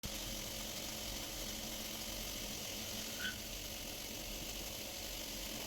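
Steady, fairly quiet hum of a CNC machining centre running, with one brief high chirp about three seconds in.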